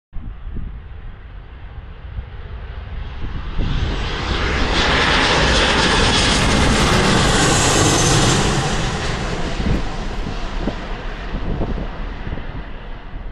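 An aircraft's engines grow louder as it passes, loudest about halfway with a high whine at the peak, then fade away. Wind rumbles on the microphone throughout.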